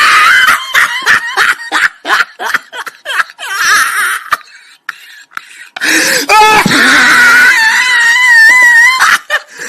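People laughing hard in short, choppy bursts, then after a brief lull a long, high-pitched wavering shriek.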